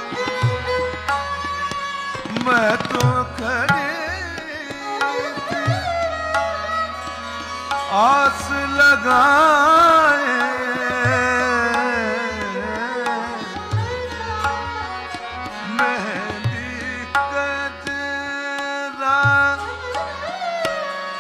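Male Hindustani classical vocalist singing ornamented, sweeping melodic runs, loudest and most elaborate in the middle, over a steady tanpura drone and tabla rhythm.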